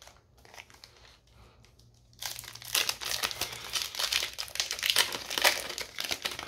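A Flesh and Blood History Pack 1 booster pack wrapper being crinkled and torn open by hand. It starts about two seconds in and runs as a dense, continuous crackle.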